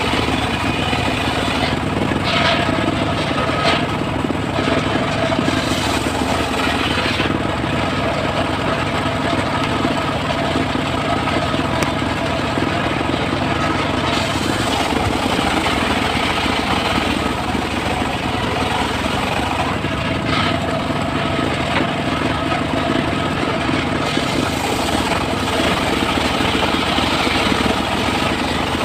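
Engine-driven circular sawmill running steadily as it cuts mahogany, with a brief sharper whine from the blade every few seconds.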